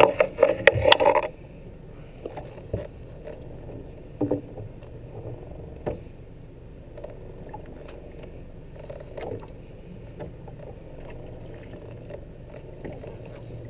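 Small fishing boat at sea: a low steady hum with scattered knocks and clicks, after a burst of loud clatter in the first second or so.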